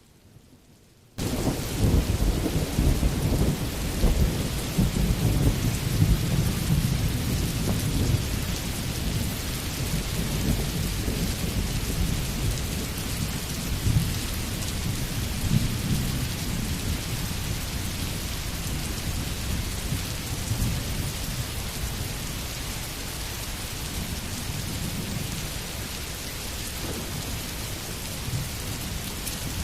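Steady heavy rainfall with a low rolling rumble of thunder, cutting in suddenly about a second in; the rumble is strongest over the first several seconds, then eases a little.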